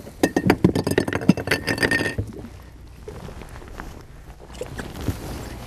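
Small casting reel and fishing line being handled by hand: a quick run of small clicks and ticks for about two seconds, then only faint scattered ticks.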